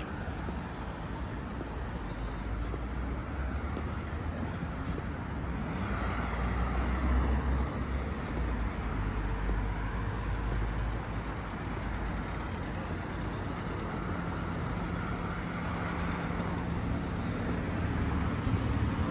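City street traffic: motor vehicles driving past with a steady low engine hum and tyre noise, one passing louder about a third of the way through.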